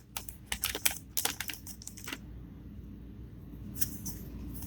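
Foil booster pack and trading cards being handled: a run of light crinkles and clicks over the first two seconds, then quieter with a single tick near four seconds.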